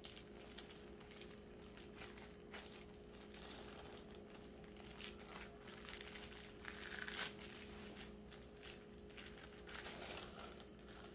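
Faint crinkling and rustling of plastic film and a bamboo sushi mat as hands roll a bacon-wrapped meat roll, in short irregular bursts over a faint steady hum.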